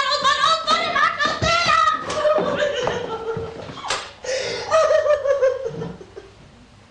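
A woman crying out and sobbing in loud, broken wails that die away about six seconds in.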